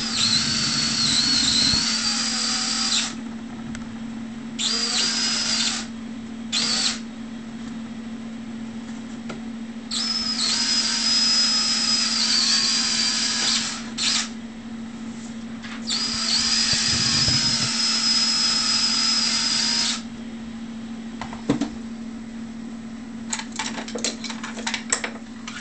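Cordless drill running in about six bursts, some several seconds long, as pilot holes are drilled and screws driven into the housing of an electric ducted fan unit on a model jet. Its high whine dips in pitch now and then. A steady low hum runs underneath, with a few light clicks near the end.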